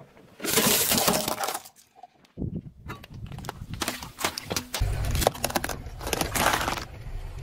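A car tyre rolling over objects on asphalt and crushing them: bursts of cracking, snapping and crunching as plastic and eggshell give way, with a low rumble from about five seconds in.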